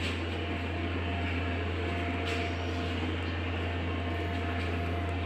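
A steady low hum from running equipment, with a faint hiss over it.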